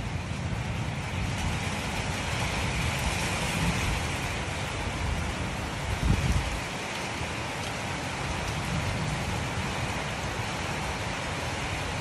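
Strong storm wind blowing: a steady rushing hiss with low rumbling buffets of wind on the microphone, loudest in a gust about six seconds in.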